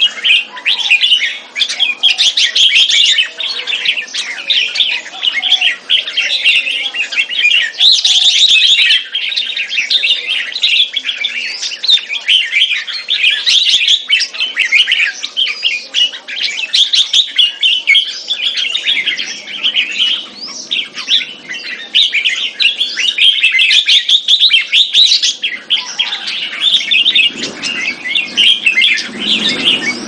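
Red-whiskered bulbuls giving dense, rapid chattering 'keke' calls, the call type these competition birds are judged on, with notes following one another almost without a break.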